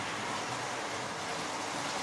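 Model Class 43 InterCity 125 train running past on the layout track: a steady rushing rattle of wheels on rails and motor, getting slightly louder as it passes.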